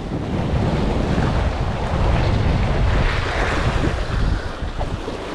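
Wind buffeting the microphone over waves washing against a rocky shore: a steady rushing noise.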